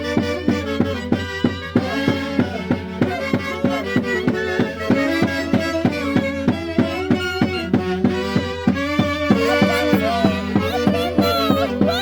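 Andean santiago dance music from the Huancayo region: a band playing a lively tune led by violin, over a steady drumbeat.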